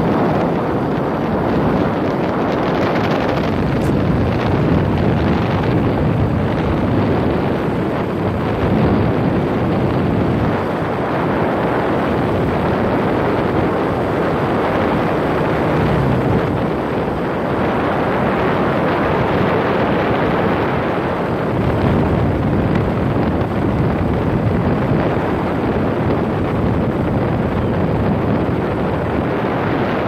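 Steady rush of wind on the microphone of a moving motor scooter, with the scooter's engine running underneath.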